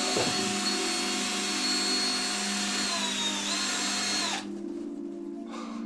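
Power drill running, spinning a hook with balloons tied to it: a steady high whine that dips in pitch briefly about three seconds in, then stops about four and a half seconds in.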